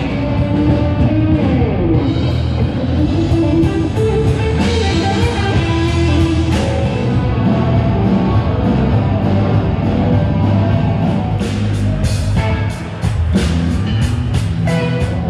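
Rock band playing: electric guitar and bass over a drum kit.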